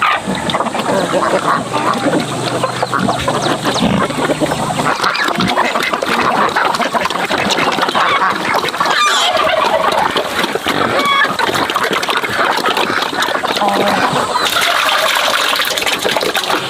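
A flock of domestic ducks quacking and calling together in a loud, continuous clamour, with a harsher, hissier stretch near the end.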